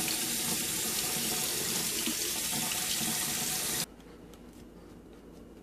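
Water running from a kitchen tap into a stainless steel sink, splashing over a laptop keyboard assembly held under the stream to rinse off sticky spilled sports drink. The steady flow cuts off suddenly about four seconds in.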